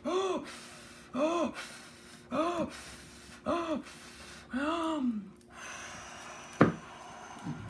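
A woman huffing and puffing in a performed voice, as if blowing a house down: five hard voiced huffs about one a second, each rising then falling in pitch, with breathy blowing between them. A single sharp knock comes near the end.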